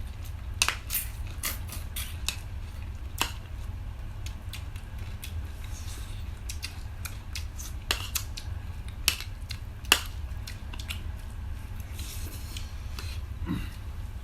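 Eating sounds at a plate of rice and chicken curry: scattered sharp clicks and crunches, a dozen or so at irregular intervals, over a steady low hum.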